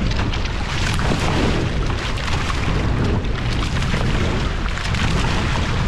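Wind buffeting the microphone in a steady low rumble, with water splashing around the hulls of a Hobie Cat sailing catamaran.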